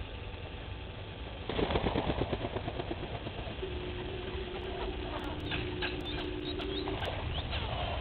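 Grey go-away-bird taking off close by: a sudden quick run of wingbeats about one and a half seconds in that fades over a second or so. A steady low hum follows for a few seconds.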